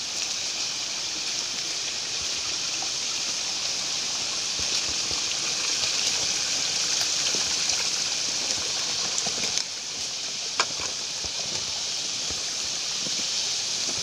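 A steady high hiss of forest ambience, with footsteps and rustling undergrowth as hikers go down a steep trail. The hiss drops briefly a little after nine and a half seconds, and a single sharp click comes about ten and a half seconds in.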